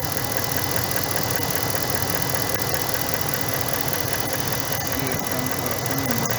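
A 2012 Dodge Ram's V8 engine idling steadily, heard close up in the engine bay, with a faint steady high whine alongside.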